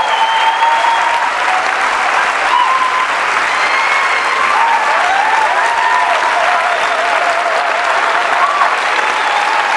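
Large audience applauding steadily, with voices calling out over the clapping.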